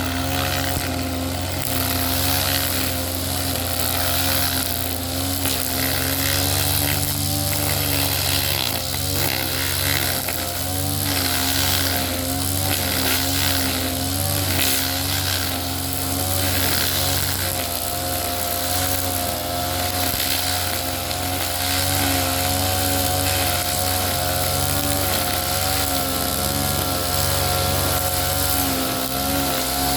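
Small Ogawa engine running steadily at high revs, its pitch wavering slightly now and then.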